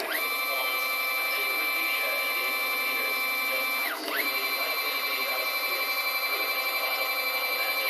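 Stepper motors of a CNC-converted Optimum BF20L milling machine driving two axis moves: a steady whine that ramps up in pitch as the move starts, holds, drops away just before the halfway point, then ramps up again for a second move that winds down at the end.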